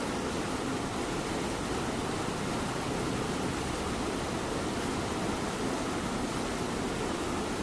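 Steady light rain hissing, with a domestic cat's low purring mixed in underneath.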